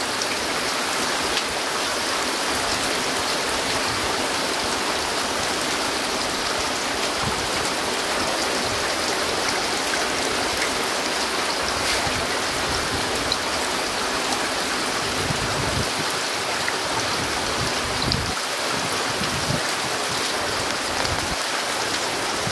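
Heavy rain pouring down steadily, an even unbroken hiss.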